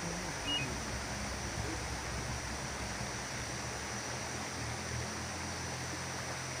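Steady rushing of water from a waterfall and its stream, an even noise without pauses.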